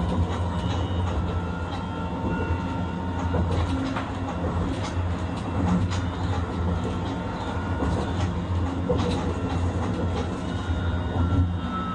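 Hiroshima Electric Railway 1000 series low-floor tram running: a steady low rumble of wheels on rail with scattered clicks, and thin whines from its Toyo IGBT inverter and traction motors. Near the end the whine begins to fall in pitch as the tram slows.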